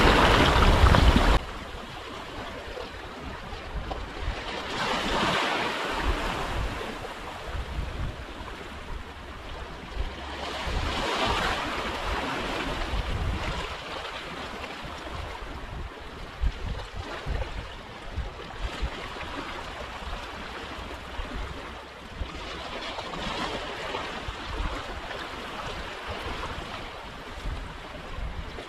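Sea waves washing in on the shore, swelling and falling back every few seconds, with wind buffeting the microphone. A louder rush of the same noise opens the stretch and cuts off suddenly about a second in.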